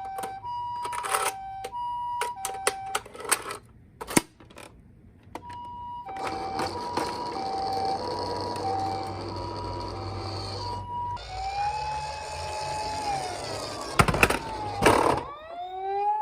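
Toy ambulance minicars' electronic two-tone "pi-po" siren, alternating high and low at an even pace, with clicks and knocks of the toys. It breaks off briefly, resumes over a rushing noise, and near the end gives way to a single held tone that slides down, sharp knocks, and a tone that rises and then holds.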